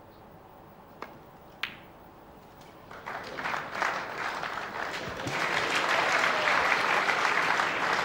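Two sharp clicks of snooker balls, the cue striking the cue ball and then the cue ball hitting an object ball, about a second apart. Then an audience starts clapping about three seconds in and the applause swells and holds near the end.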